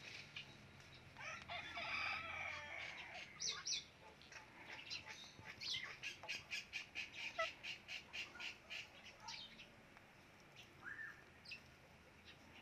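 Indian ringneck parrot vocalizing: a wavering chatter, then a long run of short sharp chirps at about three a second, and a single short call near the end.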